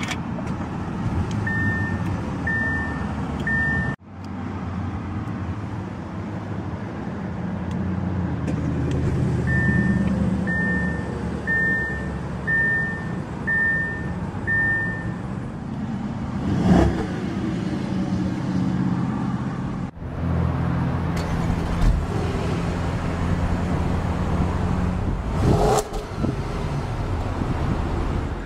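Audi A8 L's 4.2-litre V8 idling steadily just after a push-button start. A series of short beeps sounds about once a second, three times early on and six times in the middle, and a short thump is heard about two-thirds of the way through.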